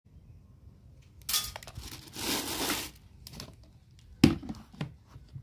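A plastic grain sack crinkling and rustling as it is handled, in two bursts, then a sharp knock about four seconds in followed by a few lighter knocks.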